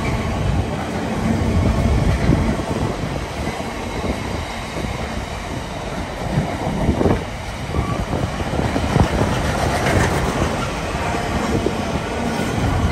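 Container freight train's flat wagons rolling past close by: a steady rumble of wheels on rail with sharp clacks now and then.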